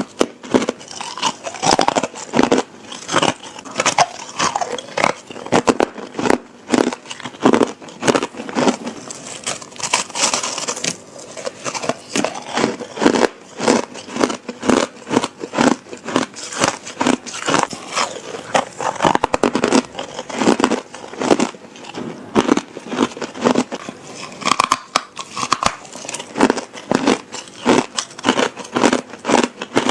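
A person biting and crunching ice in close-up, with repeated sharp crunches several times a second.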